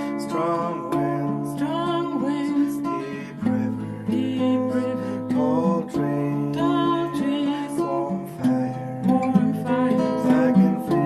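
Acoustic guitar strummed with steady chords, with a voice singing over it.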